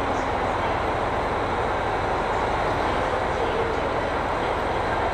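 KiHa 261 series diesel railcar idling while standing in the station, a steady engine rumble with continuous fan and exhaust noise.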